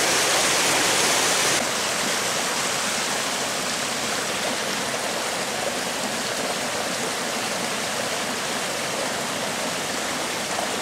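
Small rocky mountain brook rushing over stones and through riffles: a steady rush of water. The level drops a little about a second and a half in, then holds steady.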